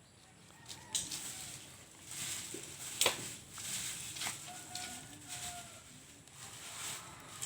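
Scissors cutting motorcycle wiring: rustling handling noise with a sharp snip about three seconds in.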